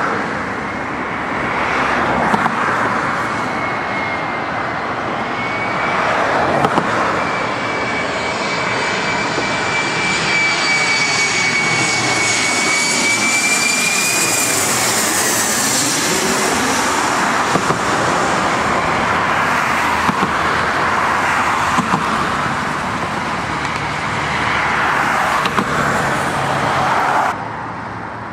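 Twin-engine jet airliner on final approach passing low overhead: a steady rushing engine noise with a thin turbine whine that falls in pitch after it goes over, about halfway through. The level drops abruptly near the end.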